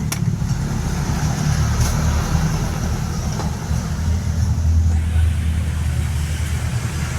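Steady low rumble of motor-vehicle traffic, swelling for about a second four to five seconds in.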